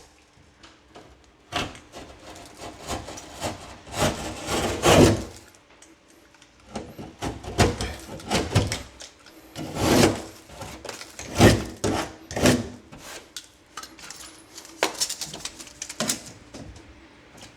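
Irregular rubbing and scraping strokes on drywall board, some short and some lasting about a second, as the board is handled and worked with hand tools.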